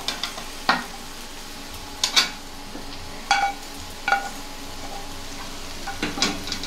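A metal spatula knocking and scraping against metal cooking pans about six times, several knocks with a short metallic ring, as fried cauliflower florets are tipped from a frying pan into a kadai of spiced potatoes. A steady low sizzle of frying runs underneath.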